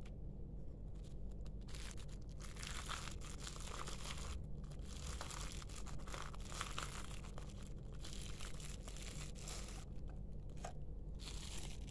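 Plastic bubble-wrap packaging crinkling and rustling in several bursts as a wireless keyboard and mouse are unwrapped by hand.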